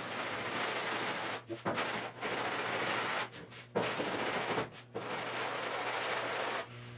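Sandpaper rubbed by hand over the primed steel rear body panel of a 1972 Triumph GT6: about four long sanding strokes, each a second or more, with short breaks between, over a steady low hum.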